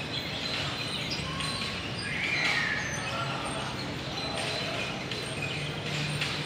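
Steady outdoor background noise, with a short bird chirp about two seconds in.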